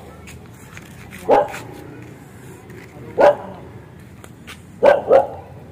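A dog barking: single barks about two seconds apart, then two in quick succession near the end.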